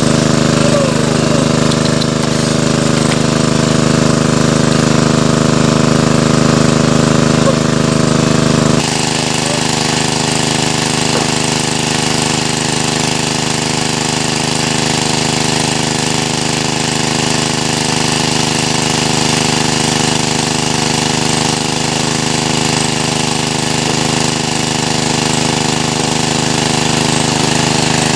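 Small gasoline engine-driven water pump running steadily at a constant speed. About nine seconds in the sound changes abruptly and becomes thinner, with less low end.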